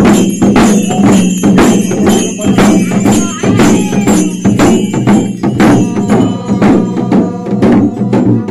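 Tamang jhakri shaman's ritual drumming: a drum beaten in a steady, fast rhythm of about four strokes a second, with metallic jingling over it.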